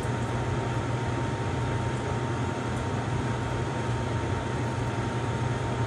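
Range hood exhaust fan running: a steady low hum and airy whir with a thin, steady high whine.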